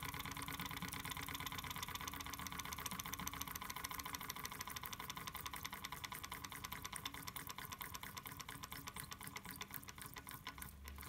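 Small brass single-cylinder model steam engine running, its quick rhythmic puffing and clicking gradually slowing until it stops near the end.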